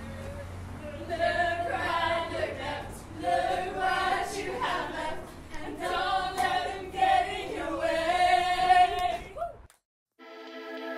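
A group of young men's and women's voices singing and whooping together in short bursts, cutting off suddenly near the end. A sustained electronic chord comes in just after.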